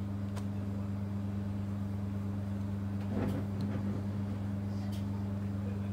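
Steady low electrical hum, with a few faint clicks and a brief faint rustle about three seconds in.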